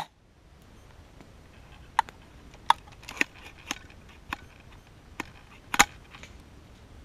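A single sharp crack right at the start, then footsteps crunching through dry leaf litter and twigs: about seven irregular sharp cracks and crunches, the loudest near the end.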